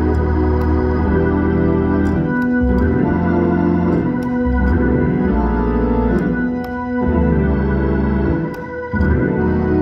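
Organ music: held chords over a deep bass, changing every second or two.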